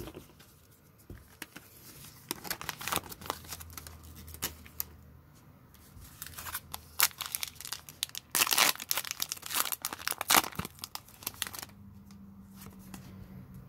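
Foil wrapper of a Pokémon TCG Darkness Ablaze booster pack crinkling and being torn open, a run of crackly rips loudest from about seven to ten and a half seconds in.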